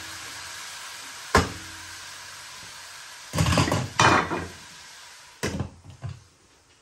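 Cabbage and chicken curry sizzling in a non-stick pot on a gas hob, with a sharp knock about a second in, a clatter of a wooden spoon set down on a plate, then a few clinks as a glass lid is put on the pot, after which the sizzle goes quiet.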